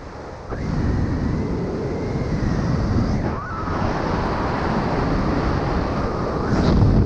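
Wind rushing and buffeting over the microphone of a skydiver flying under an open parachute canopy, getting louder about half a second in, with a faint thin whistle for a couple of seconds.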